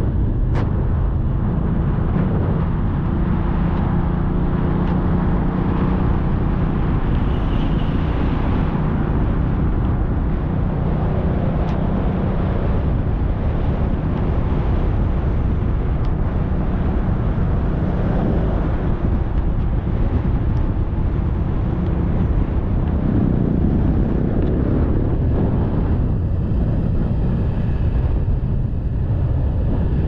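Motorcycle engine running steadily while riding along a road, under a heavy low rumble of wind on the microphone.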